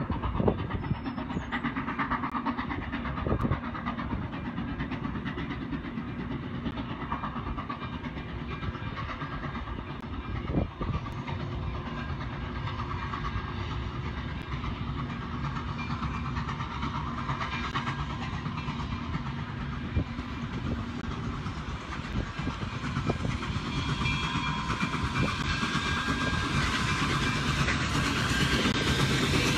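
Nickel Plate Road 765 steam train approaching and passing: a steady rumble of the train on the rails. It grows louder over the last few seconds as the tender and passenger cars roll by.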